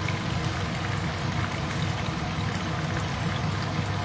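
Pieces of food frying in hot oil in a stainless steel pan: a steady sizzle full of fine crackles, over a steady low hum.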